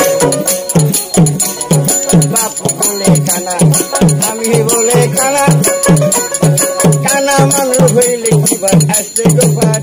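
Baul folk music: a plucked dotara melody over a steady drum beat of about three strokes a second, with high jingling percussion keeping time.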